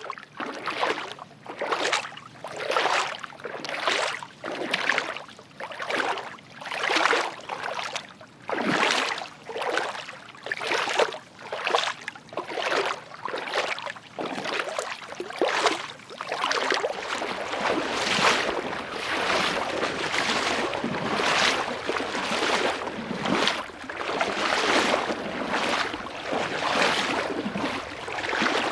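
Footsteps wading through water, one splash about every second. From about halfway on, the splashes run together into a more continuous sloshing.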